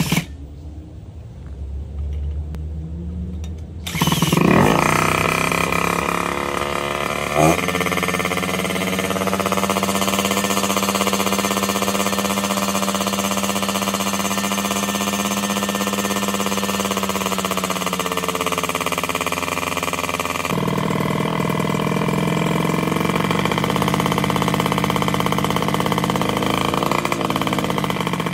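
Peugeot TSM moped's two-stroke engine catching about four seconds in, blipping once, then running steadily. Its note shifts about two-thirds of the way through. Before it fires there is only a low hum.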